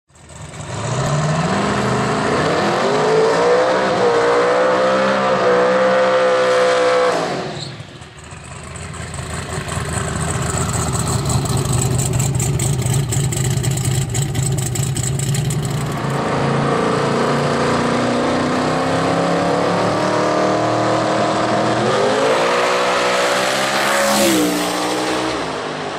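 Twin-turbo V8 drag car revving up in rising steps for several seconds before dropping off. It is followed by a burnout: the rear tyres spinning on a wet track, a hissing rush over a steady engine note. Near the end the engine revs up again and drops back.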